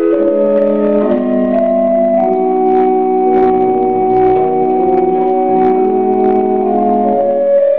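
Pipe organ played in an improvisation: slow, sustained chords that change only every second or so, with low bass notes joining about three seconds in.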